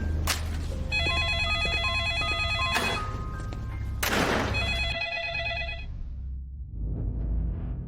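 An electronic phone ringtone warbling in a repeated pattern over background music, stopping about six seconds in.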